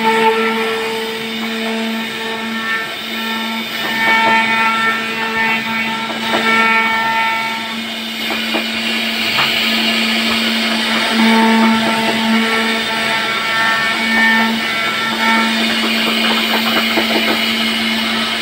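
CNC router spindle running at speed with a steady whine, its router bit carving relief grooves into a wooden door panel. Higher overtones come and go as the cut loads and unloads, with crackly chip-cutting noise heaviest about halfway through and near the end.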